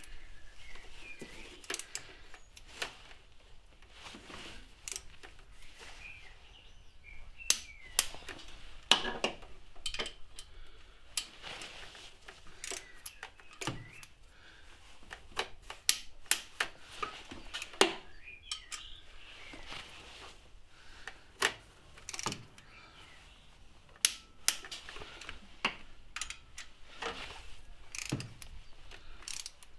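Norbar torque wrench being worked on engine bolts: irregular sharp ratchet clicks and metal clinks of the socket and tool, with a few louder knocks scattered through.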